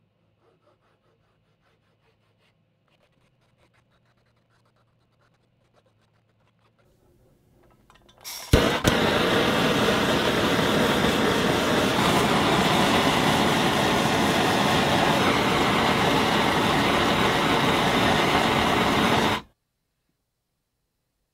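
Handheld gas torch burning with a loud, steady hiss for about eleven seconds; it starts with a sharp crack about eight seconds in and cuts off suddenly near the end. Before it, faint scratching of a marker on a wooden handle.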